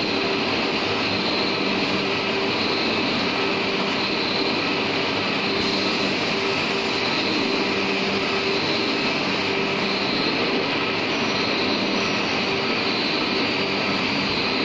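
Steady, continuous machinery noise: an even rushing hum with a few faint steady tones in it, without distinct clicks or strokes.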